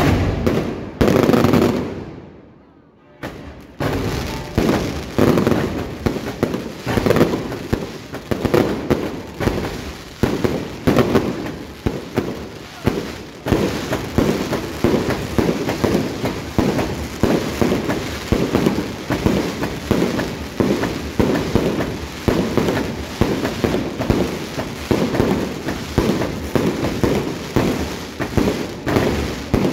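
Fireworks going off in a rapid, continuous barrage of loud bangs and crackles, several a second, with a brief lull about two seconds in.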